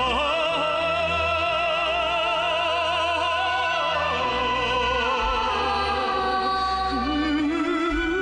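A song playing: a singer holds long notes with strong vibrato over a steady instrumental accompaniment, and the melody drops to a lower note near the end.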